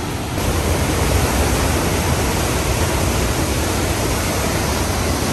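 A waterfall's steady rush of falling water, even and loud. It gets a little louder about half a second in.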